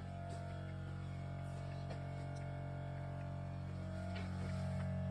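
Newly installed Tesla Model X air suspension compressor running with a steady low hum, pumping up the air springs to lift the car to its highest ride height. It gets slightly louder near the end.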